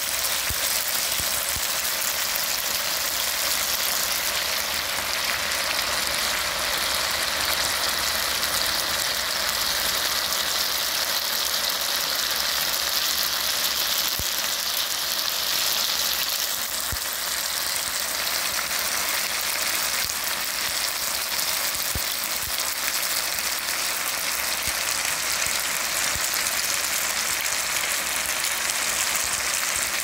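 Honeycomb-cut pork belly, shiitake and oyster mushrooms, garlic and green onion sizzling steadily in a frying pan.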